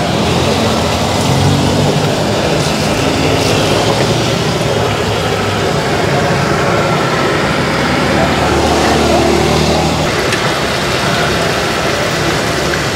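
Steady sizzle of tahu aci deep-frying in hot oil, mixed with the noise of road traffic passing the stall.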